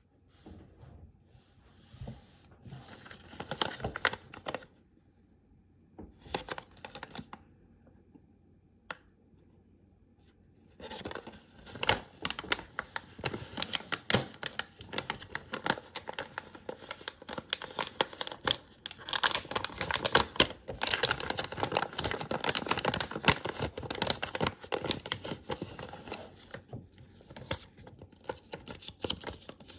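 Small retail packaging being handled and torn open: crinkling, tearing and scratching, with many small clicks and taps. It comes in short spells with quiet gaps at first, then runs almost without a break from about eleven seconds in.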